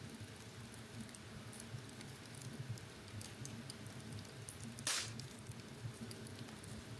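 Fire crackling in a fireplace: small scattered snaps over a low steady rumble, with one louder pop about five seconds in.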